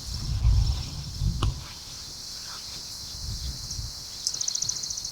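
Outdoor insect chorus: a steady high buzz, joined about four seconds in by a fast, evenly pulsing trill, with a few low rumbles on the microphone in the first couple of seconds.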